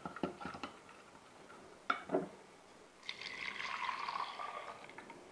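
A whisk clicks lightly against a glass jug, followed by two knocks. Then, about three seconds in, hot-milk chocolate custard mix pours from the glass jug into a stainless steel saucepan for about two seconds.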